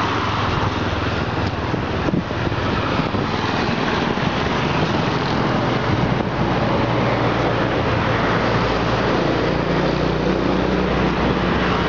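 Motorcycles running along a road, their engines humming over a steady rushing noise. Another engine tone comes in near the end.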